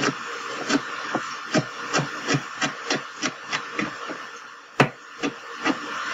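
Chef's knife chopping a green bell pepper on a plastic cutting board: a run of quick knife strikes, about two to three a second, with one louder knock near the end.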